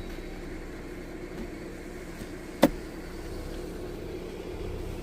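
Jeep Gladiator engine running steadily at low speed, heard from inside the cab, with one sharp knock about two and a half seconds in.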